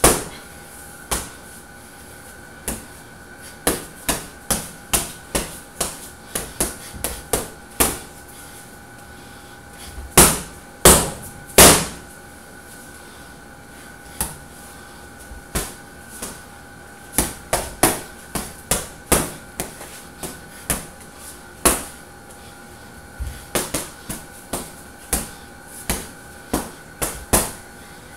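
Gloved punches landing on a hanging heavy punching bag: irregular sharp smacks, often in quick combinations of several blows, with three heavier hits about ten to twelve seconds in.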